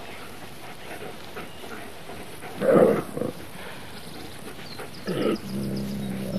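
Wolves snarling and growling at each other: a loud snarl a little under three seconds in with a short one after it, then another snarl about five seconds in that runs into a low, steady growl.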